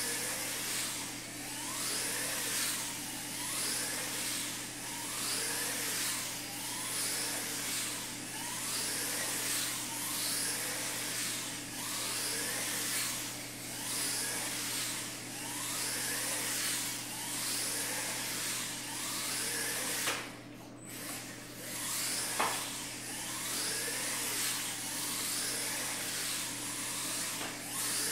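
Small 1RC electric RC car's motor whining, rising and falling in pitch about every two seconds as it accelerates down the straights and eases off for the turns of a tight oval. The whine briefly drops away about twenty seconds in, and a sharp knock follows a couple of seconds later.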